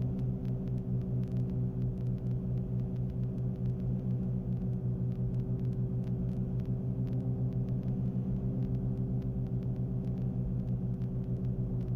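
Cabin noise of a Cessna 310's two piston engines and propellers running steadily on final approach, an even hum with a regular throb.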